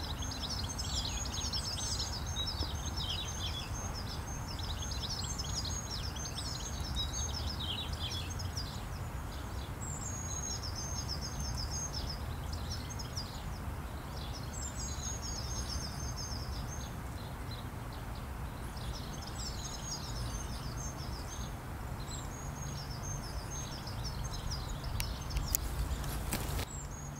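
Small songbirds singing repeated phrases of rapid high notes every few seconds over a steady low background rumble. A few sharp clicks come near the end.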